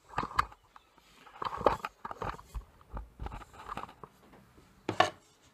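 Irregular knocks, scrapes and rubbing of hands and objects being handled on a sheet of plywood on a workbench, with a sharp knock about five seconds in.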